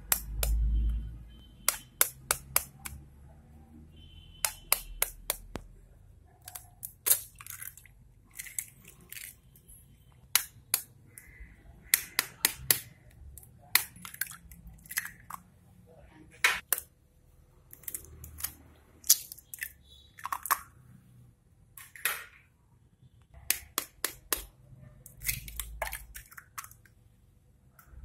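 Hen's eggs tapped against the rim of a stainless steel bowl and cracked open, one after another: sharp clicks in quick clusters of two to four, again and again.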